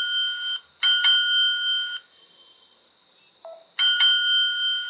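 Smartphone's find-phone alert, set off from a paired Noise Core 2 Buzz smartwatch, ringing in bursts of about a second with short gaps. The ringing stops for nearly two seconds in the middle, with a faint tap, then starts again.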